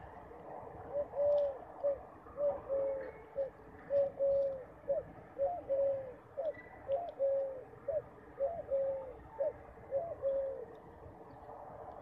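Rock pigeon cooing: a steady run of low coos, each phrase a short note followed by a longer drawn-out one, repeated about every second and a half, starting about a second in and stopping near the end.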